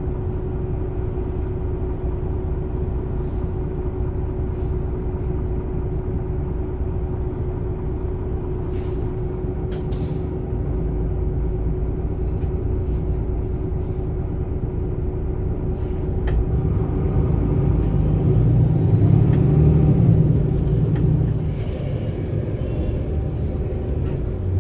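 MAN Lion's City A21 city bus, 360 hp diesel with ZF EcoLife six-speed automatic, running steadily with a constant whine over the engine rumble. From about sixteen seconds in the engine grows louder and a whine rises in pitch as the bus accelerates, easing off again near the end.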